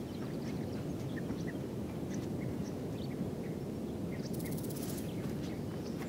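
Outdoor canyon ambience: a steady low rushing noise, with scattered faint bird chirps and a brief, fast, high rattle about four seconds in.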